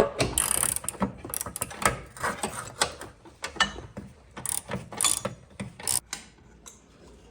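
Hand socket ratchet clicking in short, irregular strokes as bolts are turned, thinning out near the end.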